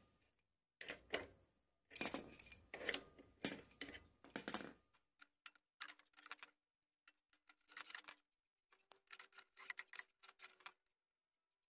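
Metal tools clinking and clicking against the clutch of a Honda GX35 brush cutter as a socket wrench works the clutch shoe bolts loose. The louder clinks come in the first half and a few ring briefly; lighter scattered ticks follow.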